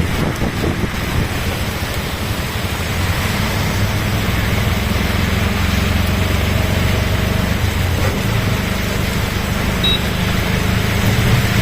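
Heavy rain with road traffic: a steady low hum of vehicles under an even hiss of rain.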